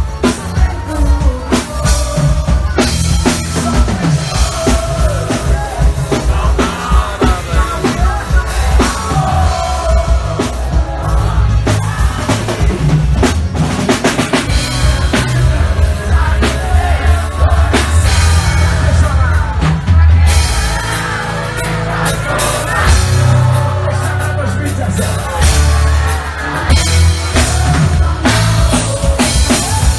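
Live forró band playing loud, with a steady drum-kit beat over a heavy bass line.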